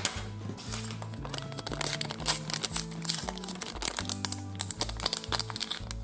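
Small promo sachet crinkling in the hands as it is torn open, a quick run of dry crackles, over background music with a steady bass beat.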